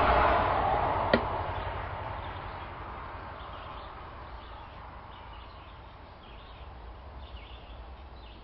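Handling noise as the spear is moved close to the camera: a rushing sound that fades over a few seconds, with one sharp click about a second in. Faint bird chirps follow.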